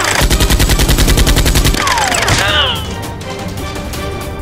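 Automatic gunfire sound effect: a rapid burst of shots lasting about a second and a half, then a few quick falling tones, over background music.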